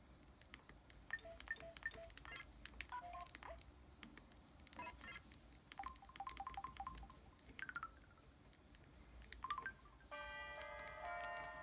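Samsung Anycall SCH-W200 feature phone's built-in effect sounds: a run of short electronic beeps and blips at varying pitches mixed with small clicks, then a steadier chord of several tones held about ten seconds in.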